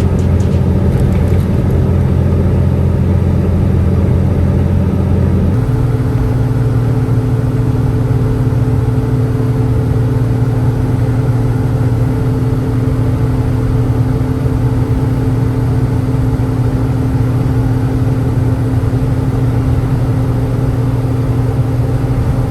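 Semi truck's engine and road noise droning steadily while driving on the highway, the engine note changing abruptly about five and a half seconds in.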